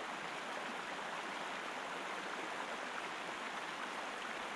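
Steady, even rush of water ambience, with no separate paddle strokes standing out.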